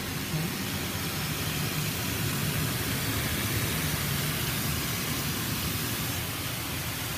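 High-pressure water jets of a Mark VII SoftLine Dynamic touchless car wash tunnel spraying over the car, heard from inside the cabin. It is a steady hiss with a low hum beneath.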